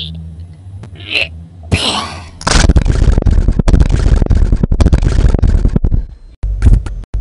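Cartoon sound effect of breadcrumb stuffing blasting out of a man who needs to relieve himself: a short voice sound, then about two and a half seconds in a loud, sputtering, fart-like blast lasting over three seconds that breaks into a string of short spurts near the end.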